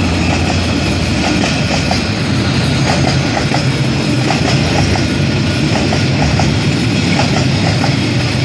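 Freight train passing close by: the D19E diesel locomotive's engine drone at first, fading after about two seconds. Then a steady rumble of container wagons' wheels on the rails, with repeated clicking as the wheels cross rail joints.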